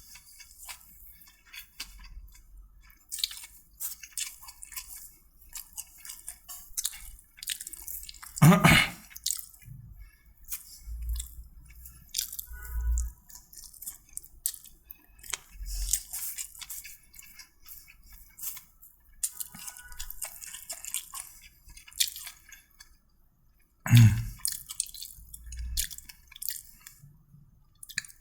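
Close-up eating sounds: wet chewing and small crackly mouth clicks, with two brief louder bumps, one about eight seconds in and one near the end.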